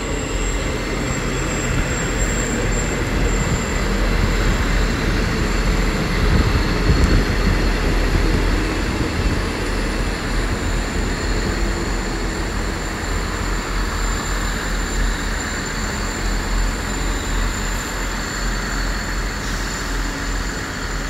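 Six-coach pair of Class 159 diesel multiple units running in along the platform, steady underfloor diesel engine noise mixed with wheels running on the rails. A thin high steady tone runs throughout.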